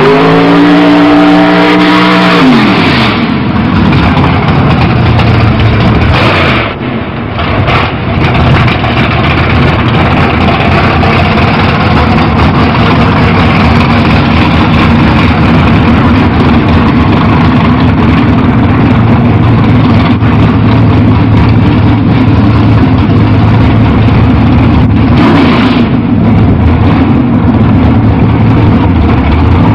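Drag race car's engine coming down off the revs at the end of a burnout, its pitch falling over the first couple of seconds, then running loud and steady at a rough idle. There is a short dip in loudness about seven seconds in.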